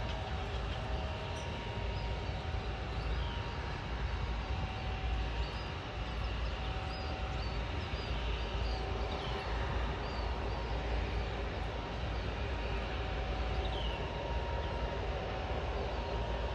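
Steady low rumble of jet aircraft engines running at a distance, with a faint on-off hum and a few small birds chirping.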